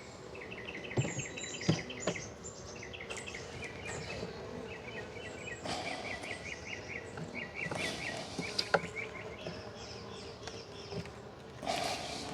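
Honeybees buzzing around an open hive during an inspection, with a bird's quick chirping trills repeating every second or so over them. A few sharp clicks and knocks come about a second in and again near the nine-second mark.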